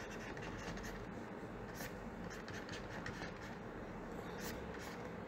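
Faint, irregular scratching of a stylus writing out handwriting on a pen tablet, several short strokes in a row.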